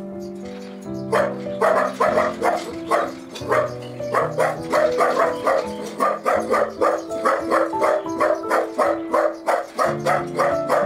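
A dog barking over and over in quick, short barks, about three a second, starting about a second in, with steady background music underneath.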